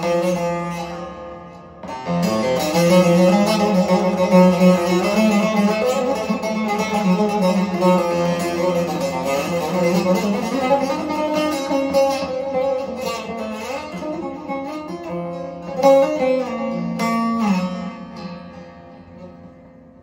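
Solo bağlama (long-necked Turkish saz) playing a free-rhythm improvised taksim in makam Nihavend: plucked melodic runs over ringing strings. The notes die down at the start, a new phrase is struck about two seconds in, and it fades away near the end.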